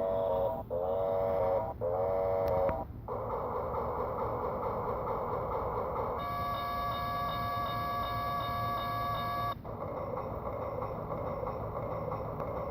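Vintage toy Santa Fe train station playing its built-in train sound effects: three short pitched patterns, then a rushing noise, a steady multi-note tone held for about three seconds, and the rushing noise again.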